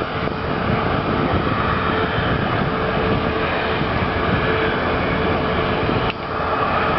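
A boat's motor running with a steady drone and a constant hum, dipping briefly about six seconds in.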